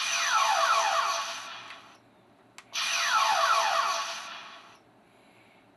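Master Replicas assault phaser prop replica firing twice with its electronic phaser sound effect, the setting closer to the film's sound: each shot is a noisy zap laced with quickly repeating falling tones, about two seconds long and fading out. A short click comes just before the second shot.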